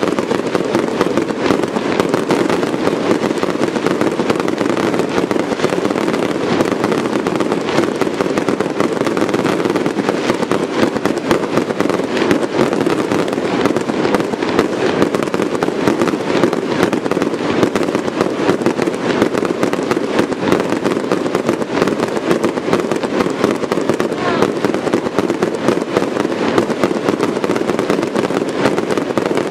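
Aerial fireworks display in a dense, continuous barrage: shell bursts and reports follow one another so fast that they merge into one unbroken rattle, with no pauses.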